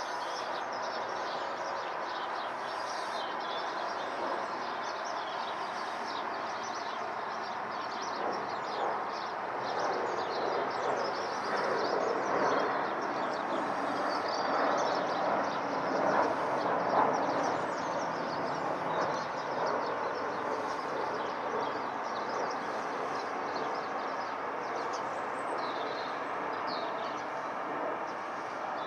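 Airbus A321-212's CFM56 jet engines rumbling as the airliner passes overhead, the sound swelling around the middle and easing off again. Birds chirp briefly now and then.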